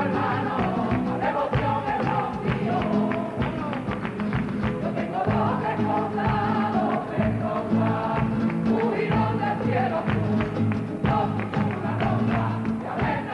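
Live flamenco-style Andalusian song: women singing to strummed Spanish guitars and rhythmic hand clapping.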